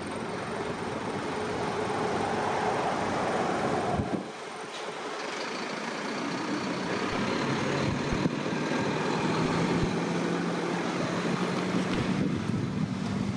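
Heavy vehicle running past: a steady noise of motion that dips briefly about four seconds in, with a steady low hum joining about seven seconds in and a few scattered knocks.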